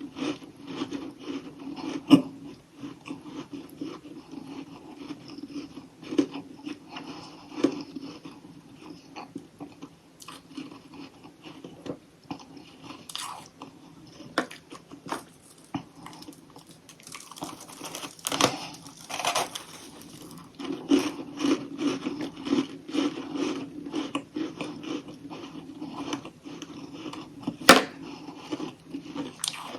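Close-up chewing and crunching of frozen humidifier freezer frost chunks: a dense run of irregular crackles and snaps, with the sharpest crunches about two seconds in and near the end.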